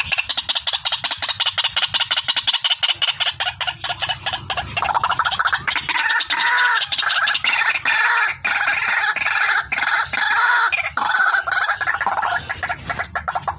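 Female white-breasted waterhen calling: a fast, unbroken run of repeated harsh notes, many to the second, that grows fuller and louder through the middle and thins again near the end.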